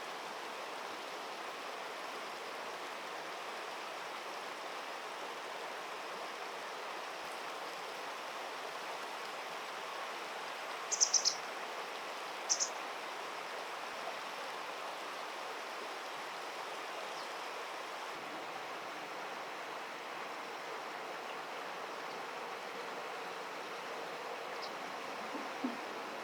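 Steady rush of flowing stream water. A quick cluster of short high chirps comes about eleven seconds in, with one more shortly after.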